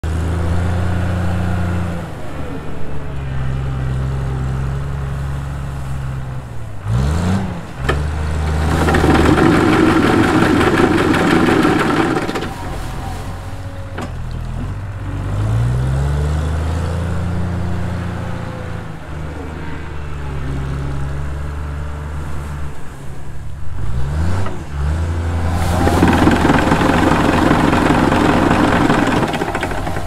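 Mono-boom almond tree shaker at work: its engine runs steadily, dipping and rising in pitch between trees. Twice, for about four seconds each, it gets much louder as the clamped shaker head, driven by a hydraulic motor spinning off-centre weights, shakes a tree trunk violently.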